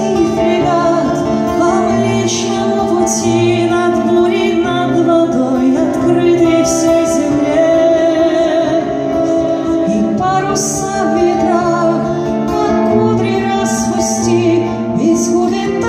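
Live music: a woman singing a slow melody in Russian, accompanied by an acoustic guitar.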